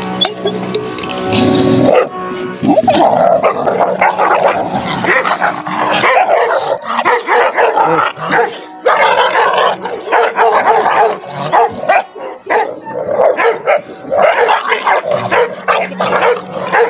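Two Akbash puppies play-fighting, barking and yipping at each other without a break from about two seconds in.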